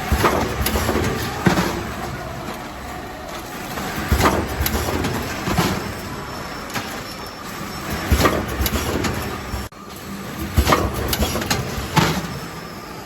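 Jelly sachet repacking (form-fill-seal) machine running: a steady mechanical hum with sharp clacks and knocks every one to three seconds as it cycles. The sound drops out abruptly for a moment about two-thirds of the way through.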